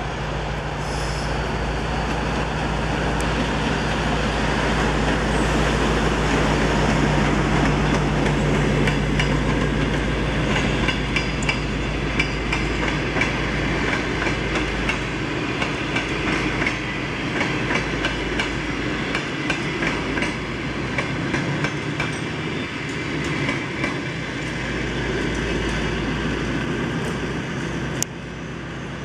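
TEP60 passenger diesel locomotive passing, its two-stroke V16 diesel engine giving a steady low drone that is loudest about a third of the way in. The passenger coaches then roll by with a rhythmic clickety-clack of wheels over the rail joints, fading as the train moves away.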